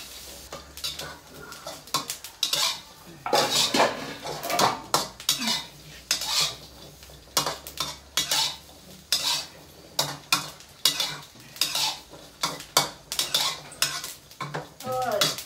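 Metal spatula scraping and clanking against a steel wok in quick, irregular strokes, stirring shallots, garlic and chilies that are being dry-roasted over a gas burner, with only a faint sizzle.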